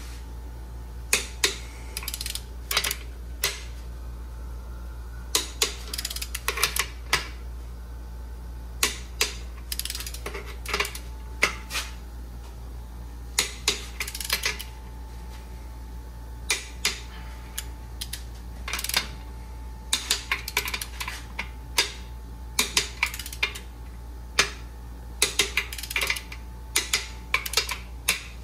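Ratchet of a long torque wrench clicking in short runs of quick clicks, again and again, as the main bearing cap bolts on an LS engine block are tightened. A steady low hum runs underneath.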